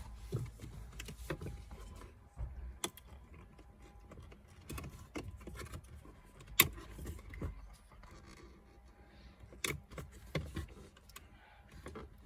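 Scattered clicks and light knocks of hands working loose plastic dashboard trim and its clips inside a car, with a few sharp clicks standing out.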